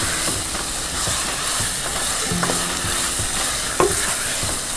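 Chicken masala sizzling in oil in an open pressure cooker while a slotted spoon stirs and scrapes through it, with one sharper knock about four seconds in.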